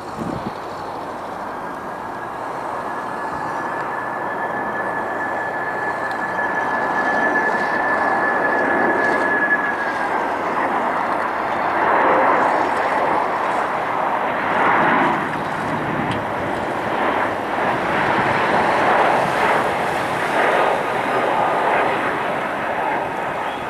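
Boeing 767-300ER jet engines on a landing approach, a rushing noise that slowly grows louder with a thin steady whine over it for several seconds. From about halfway, the noise swells and fades unevenly in the strong wind.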